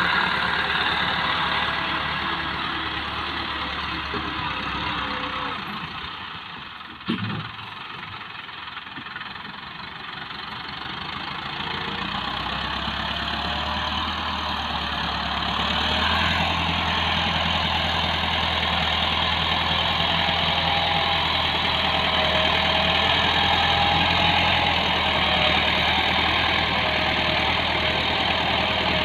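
Massey Ferguson tractor's diesel engine running as its front blade pushes sand. It falls quieter for a few seconds, with one sharp knock about seven seconds in, then grows louder again from about twelve seconds on.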